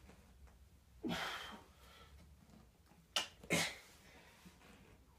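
A man breathing out hard through the mouth while doing press-ups, one forceful huff per rep, two about two and a half seconds apart, with a short sharp breath just before the second.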